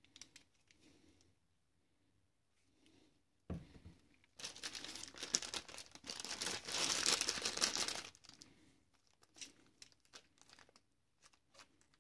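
Packaging of a replacement alternator bearing crinkling and rustling for a few seconds as it is handled, after a single knock, with a few light clicks near the end.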